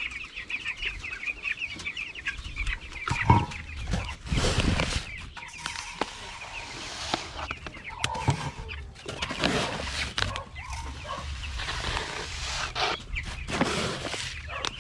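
A flock of native chickens clucking, with quick high calls packed close together in the first few seconds. Scattered knocks and rustling come through over the calls, one sharp knock a little over three seconds in.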